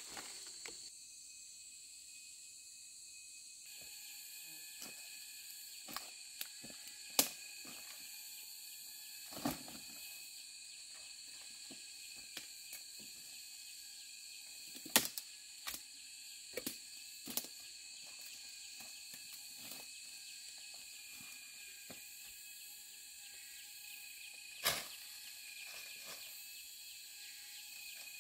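Insects chirring steadily in several high, unbroken tones. Sharp knocks and taps come now and then, the loudest about a quarter, half and most of the way through.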